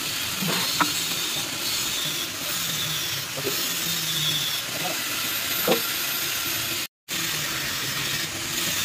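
Steady hiss, with a few faint metallic clicks of a socket and bar on the crankshaft bearing cap bolts of a bus engine block.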